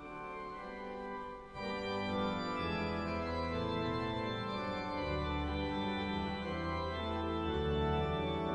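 Organ music playing slow, held chords. It grows louder about a second and a half in, as a deep bass part enters.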